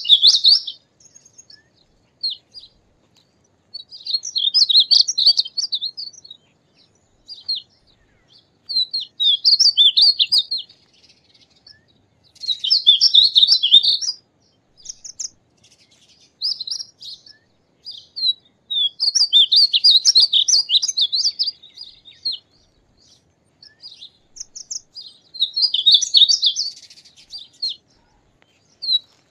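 Male painted bunting singing: about half a dozen quick, high, sweet warbling phrases, each one to two seconds long, separated by pauses of a couple of seconds with a few single notes between.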